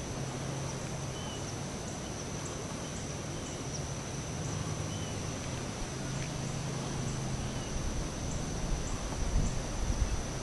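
Quiet bayou ambience: a steady high-pitched whine with faint ticking about twice a second, a few faint bird chirps, and a low hum that comes and goes.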